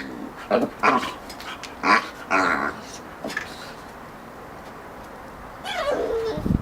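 Boxer puppy and teacup Yorkshire terrier at play: several short barks and yips in the first couple of seconds, then a lull, then one falling whine near the end.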